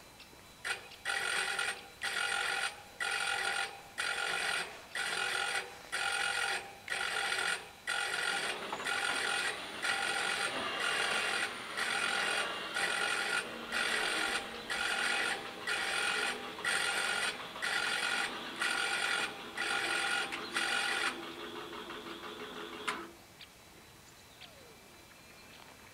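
Level crossing warning bells of a WSSB crossing ringing in regular pulses, about one a second, as the crossing activates. From roughly the middle a steady lower hum of the barrier motors joins in while the arms lower; the bells stop about 21 seconds in and the motor hum a couple of seconds later, as the barriers come to rest.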